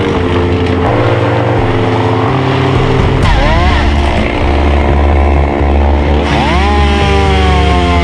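Background music: held synthesizer notes that change pitch in steps over a heavy bass, with a few sliding notes.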